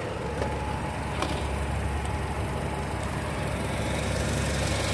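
2007 Nissan Versa's 1.8-litre four-cylinder engine idling steadily, heard close up in the engine bay, with the new A/C compressor's clutch engaged and the compressor running.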